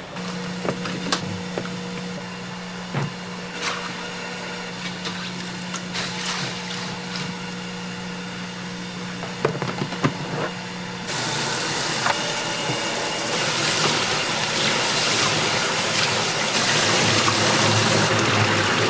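Cooking at a tteokbokki snack stall: light clinks of utensils over a steady hum, then a loud steady hiss starts about eleven seconds in and carries on.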